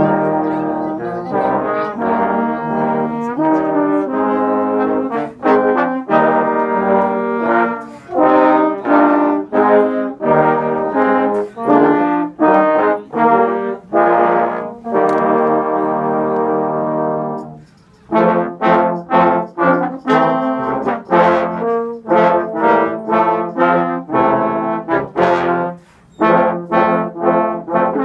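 A trombone ensemble of six trombones playing a piece in harmony, the chords moving in a steady rhythm. About two thirds through they hold one long chord, break off briefly, then carry on.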